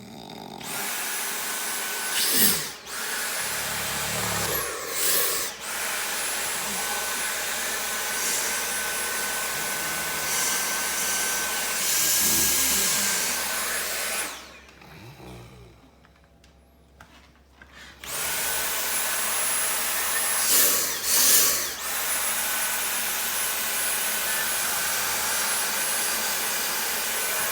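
An electric motor runs with a steady high whine over a rush of noise, like a power tool or a vacuum. It whirs up to speed, cuts out about 14 seconds in, and starts again a few seconds later, with brief louder surges now and then.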